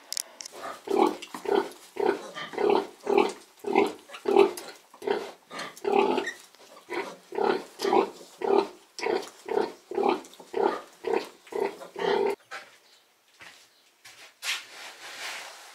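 A sow grunting rhythmically, about two grunts a second, while her litter of piglets suckles: the steady nursing grunt a sow makes to call the piglets to her teats. The grunting stops about twelve seconds in.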